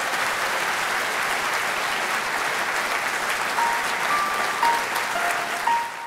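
Audience applauding steadily at the close of a talk. About three and a half seconds in, a few soft piano notes begin over the applause.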